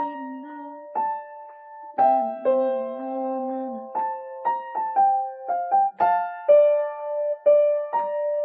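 Solo piano playing a slow melody over held chords, with notes struck about once a second and a quicker run of notes in the middle.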